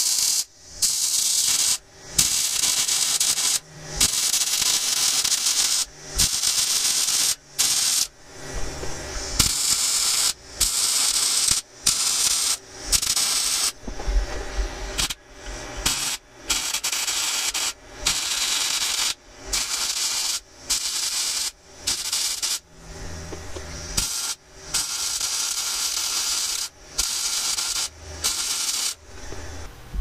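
Electric arc welding on polished steel tubing: a harsh hiss that starts and stops about twenty times, in runs of one to two seconds with short breaks, as the weld is laid in short stitches.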